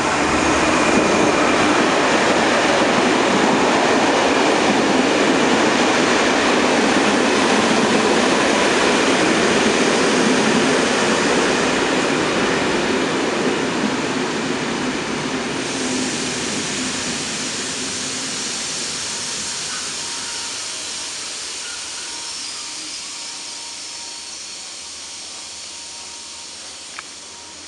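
Pair of SNCF BB 67300-series diesel locomotives running past with a string of Corail coaches. The sound is loudest as the locomotives go by, then fades steadily as the coaches roll past and the train moves off.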